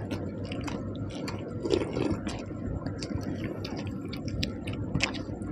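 Close-up eating sounds: small wet squishes and clicks of someone eating panta bhat, water-soaked rice, by hand and chewing it, over a steady low hum.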